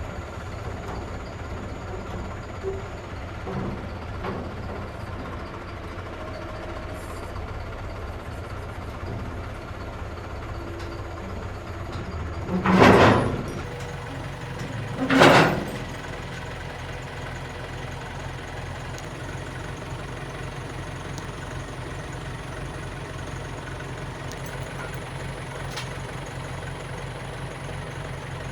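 Case backhoe loader's diesel engine running steadily while the machine is driven onto a trailer, with two short, loud bursts of noise about 12 and 15 seconds in.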